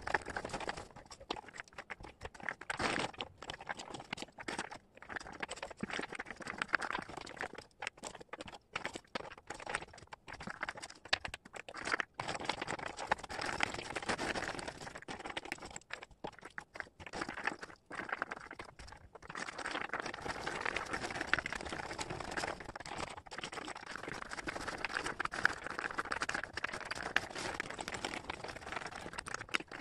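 Wooden jigsaw puzzle pieces clicking and rustling as hands spread and sort them across a cork board: a dense run of small clicks with brief breaks.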